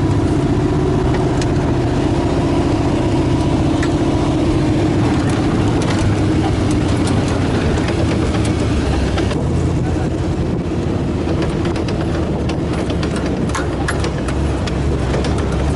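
1975 Toyota FJ40 Land Cruiser's engine running steadily, with a deep, even tone throughout.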